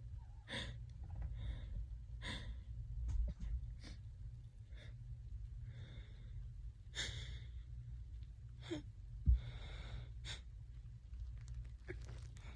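A person with a cold building up to a sneeze, with a run of short, gasping in-breaths and breathy sighs that stop short of the sneeze. A dull bump about nine seconds in is followed by a longer breathy rush.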